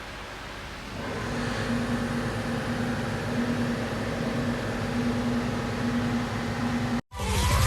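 Steady mechanical running noise with a hum that keeps cutting in and out, starting about a second in. It stops abruptly near the end as music comes in.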